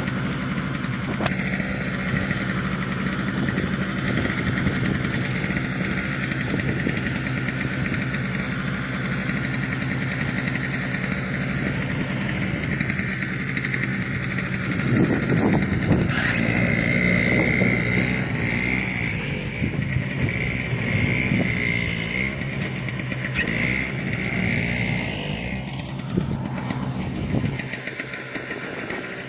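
An engine running steadily, its tone shifting about halfway through and the level dropping near the end.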